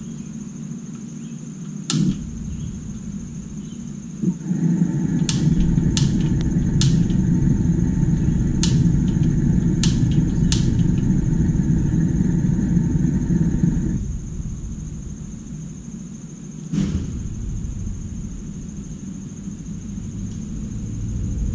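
Propane patio heater's push-button igniter clicking about nine times as it is tried. Meanwhile a steady low rumble starts suddenly about four seconds in and cuts off suddenly about ten seconds later.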